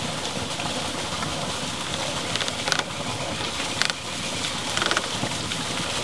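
Steady rush of flowing creek water, with a few light knocks and clicks of PVC pipe being worked into a 45-degree elbow fitting between about two and five seconds in.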